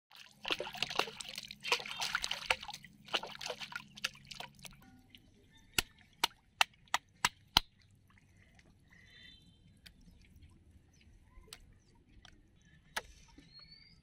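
Water splashing and churning around a floating plastic bottle fish trap for the first few seconds. Then about six sharp knocks in quick succession, a stone striking snails on a brick block to crack their shells, with two more single knocks later.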